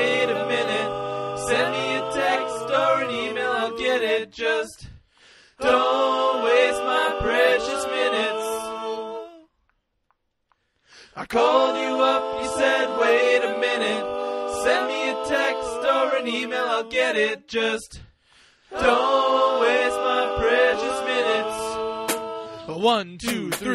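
Song passage sung by several voices in harmony, with little or no instrumental backing. The singing breaks off for a moment about halfway through, then resumes.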